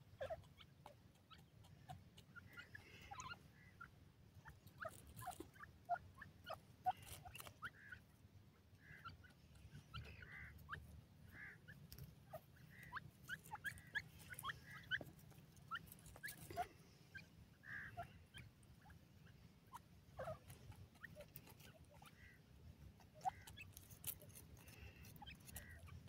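Grey francolins giving faint, scattered short chirping calls, with soft clicks as they peck and dig at the dry soil.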